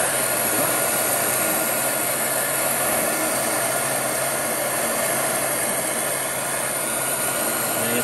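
Handheld heat gun running steadily, its fan blowing hot air onto solder-seal heat-shrink connectors to shrink the tubing and melt the solder over the crimped wire splices.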